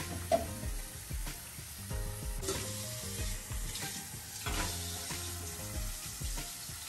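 Dishes and utensils clinking, knocking and scraping as a dishwasher is loaded, with a light hiss underneath.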